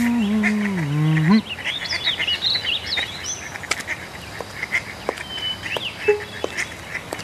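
Cartoon sound effects: a low pitched honking tone that bends down and back up, cut off about a second and a half in. After it come scattered short, high bird-like chirps and tweets.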